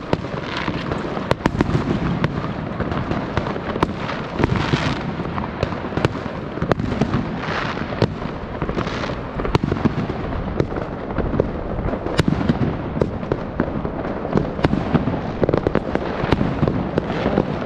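Fireworks going off in a dense, continuous barrage: many overlapping sharp bangs, with rushes of crackling every second or two.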